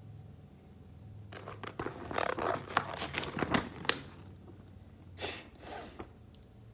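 Packaging being handled: crinkling and rustling for about two and a half seconds with several sharp clicks, then two short rustles near the end.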